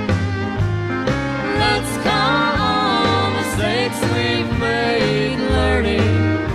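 Traditional country band playing an instrumental break: bass and drums keeping a steady beat under a lead instrument playing sliding, bending notes.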